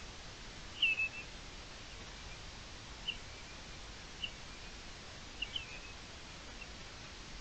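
Common redshank calling: a series of short, high whistled notes that drop in pitch, the loudest about a second in and a quick pair near the middle, over a steady hiss.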